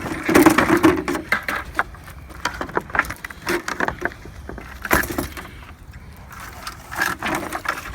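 An old lamp and other curbside scrap being handled: a run of clinks, rattles and knocks of metal and glass. It is loudest at the start, with sharp knocks about five and seven seconds in.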